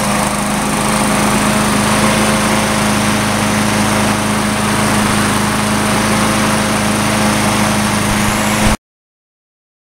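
Craftsman 650 self-propelled lawn mower's single-cylinder engine, just started with its key, running steadily at a constant speed. It cuts off abruptly near the end.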